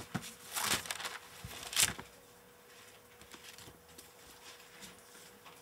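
Paper pages of a book being turned and rustled by hand: two brief rustles in the first two seconds, the second louder, then faint handling sounds.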